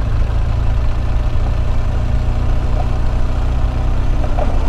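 Adventure motorcycle's engine running steadily while the bike rides along a dirt road, heavy in the low end with a faint steady hum above it.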